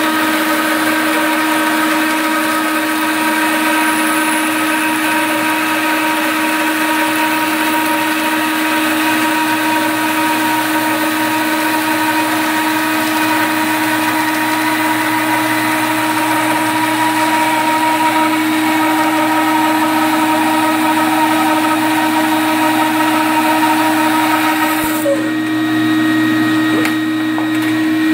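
Rikon bandsaw running steadily while resawing a timber held in a sawmill sled, the motor hum under the hiss of the blade cutting wood. About three seconds before the end the cutting hiss drops away as the blade comes through the wood, leaving the saw running with no load.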